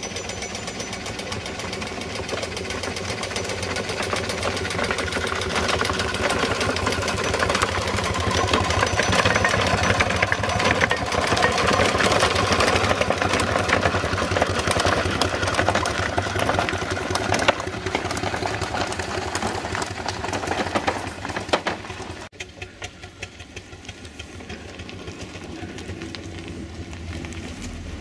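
Ride-on miniature steam traction engine running under way with a fast, even mechanical beat, growing louder as it comes close and passes. The sound drops suddenly about 22 seconds in and then builds again as the engine approaches once more.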